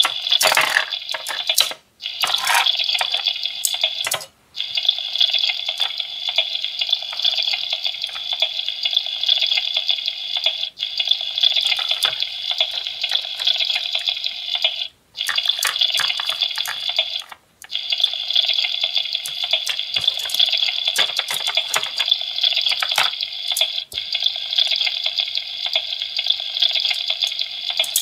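Recorded frying sizzle from an Anpanman toy frying pan played through its small speaker: a steady hiss that cuts out briefly four times and starts again. Light plastic clacks of toy food and tongs sound over it.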